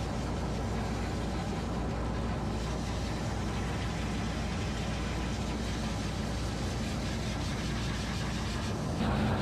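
High-velocity pet dryer blowing steadily through its hose and nozzle onto a Persian cat's wet coat, with a low motor hum under the rush of air. It gets louder about nine seconds in.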